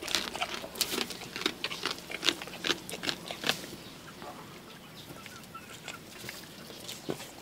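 A goat chewing and crunching as it feeds: rapid, irregular crackly clicks for the first three seconds or so, then quieter, with a few faint chirps in the middle.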